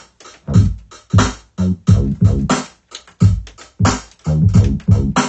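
Drum hits and short chopped sample stabs with bass, triggered by hand from the pads of an Akai MPC 2500 sampler. They come in an uneven stop-start pattern, with brief gaps between the hits.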